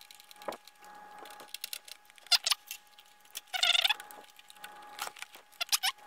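Thumb screws being fitted and turned by hand on an NZXT Kraken X52 liquid cooler's mount: small clicks and scrapes with a few short squeaks, the loudest about three and a half seconds in.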